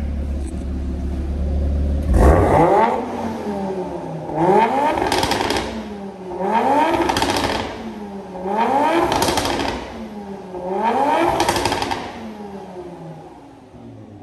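Audi TT RS's turbocharged 2.5-litre inline five-cylinder engine through a titanium valved exhaust with the valves open: idling, then revved sharply five times about every two seconds, each rev rising and falling in pitch, before dropping back toward idle near the end.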